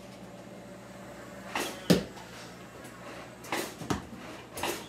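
Toy foam-dart blaster in use: three pairs of sharp clacks and thumps from the blaster firing and its darts striking, the loudest about two seconds in.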